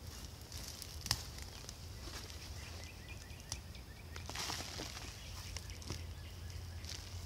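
Gloved hand digging and scraping through potting soil in a plastic bucket, the soil rustling and scratching in irregular strokes, with a sharp click about a second in. A steady low rumble runs underneath.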